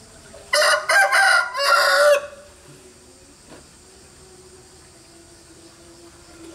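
A rooster crowing once: one loud call in several linked parts, starting about half a second in and lasting under two seconds.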